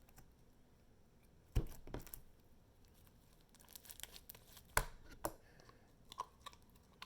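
Homemade slime being handled and stretched by hand, giving a few scattered sharp sticky pops and tearing sounds, the loudest about a second and a half in and again just under five seconds in.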